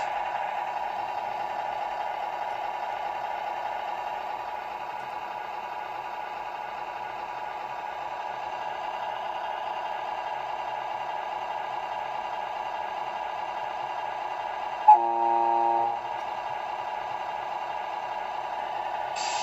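Tamiya MFC-01 sound unit in a 1/14 Scania R620 model truck playing a steady simulated diesel engine idle through its small speaker. About fifteen seconds in it sounds one horn blast of about a second.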